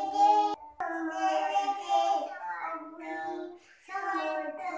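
A toddler singing in a high, childlike voice, with several long held notes and brief breaks between phrases.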